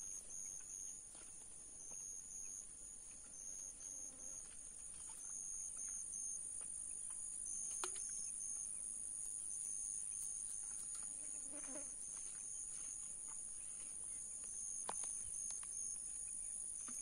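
Insects chirring in marsh vegetation: a steady high-pitched buzz with a quick pulsing note beneath it, and a few faint clicks.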